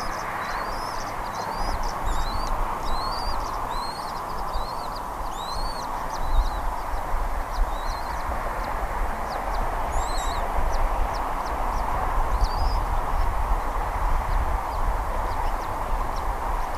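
High-pitched bird chirps: a run of short, arched, upswept notes, about one every half second at first and sparser in the second half. They sit over a steady rushing noise and a low rumble.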